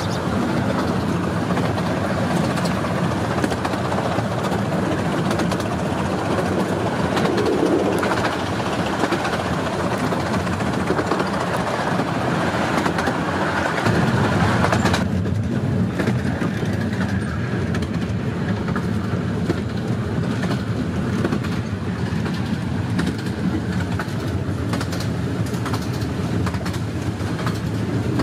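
Running noise of a 15-inch-gauge miniature railway train heard from aboard: a steady rumble of wheels on rails with rapid clicking over the track. The higher hiss drops away suddenly about halfway through, leaving a duller rumble.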